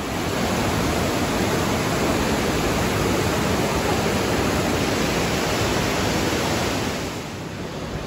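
Fast river rapids rushing over boulders: a steady, even rush of water that gets somewhat quieter near the end.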